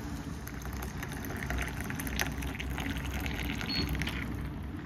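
Water from a kitchen tap pouring into a ceramic mug onto a tea bag, stopping a little after four seconds in, over a steady low hum.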